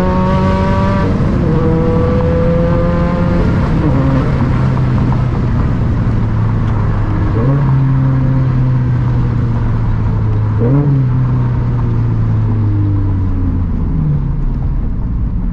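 Turbocharged 2013 Scion FR-S flat-four with a custom titanium center-exit exhaust, heard from inside the cabin, revs climbing under acceleration, breaking at a gear change and climbing again. It then settles into steadier running, with two brief rev blips at gear changes about seven and eleven seconds in, and eases off near the end.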